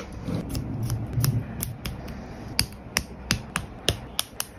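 Keys on a snap-together brick-built model being pressed one after another: a string of light, uneven plastic clicks, about three a second.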